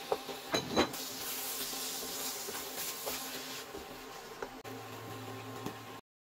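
A wooden spoon stirs a thick ground beef and vegetable sauce in a stainless steel pan over a steady hiss of simmering, with a few scraping knocks in the first second. A low steady hum comes in about two-thirds through, and the sound cuts off abruptly at the very end.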